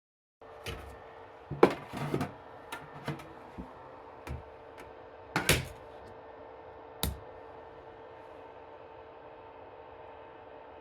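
A series of sharp clicks and knocks, as of small hard objects being handled and set down, over a steady hum. The loudest knocks come about a second and a half in and around five and a half seconds in, and a last click comes about seven seconds in.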